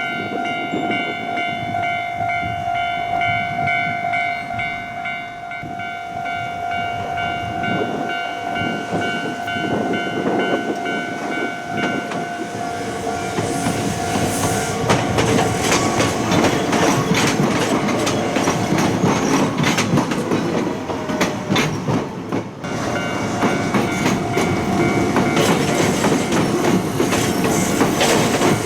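Japanese level-crossing warning bell ringing steadily. About twelve seconds in, an Iga Railway train passes and its wheels clatter over the rail joints, largely drowning out the bell. The bell is faintly heard again under the train noise near the end.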